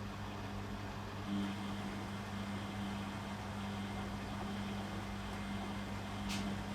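Beko WM6255W washing machine running with a steady hum, with a brief tick about six seconds in.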